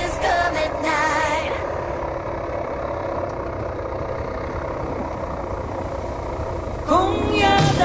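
A vehicle engine running steadily for about five seconds, framed by a pop song with singing that cuts out about a second and a half in and comes back near the end.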